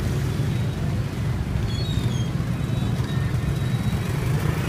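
Motorbike traffic on a crowded street: a steady low rumble of small engines.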